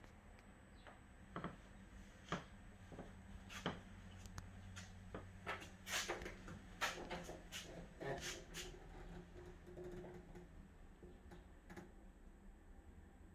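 Faint, irregular taps and knocks in a small room, over a low steady hum.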